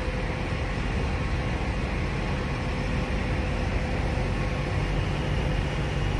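Steady rumble of semi-truck engines and traffic around a truck parking lot, with a faint steady hum that fades out about five seconds in.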